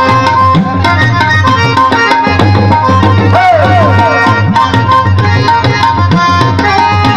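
Instrumental interlude of a devotional bhajan: tabla playing a fast driving rhythm over steady harmonium chords, with a short wavering high note about three and a half seconds in.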